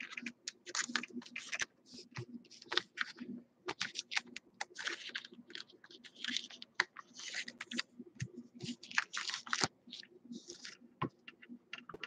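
2016 Donruss Optic baseball cards being flipped and slid off a stack by hand: irregular light clicks and short papery scrapes, several a second.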